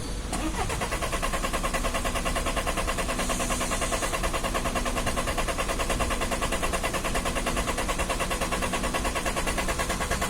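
Car engine being cranked over by its starter motor for about ten seconds, a rapid even pulsing that starts suddenly and cuts off suddenly: a hard start, the engine slow to fire.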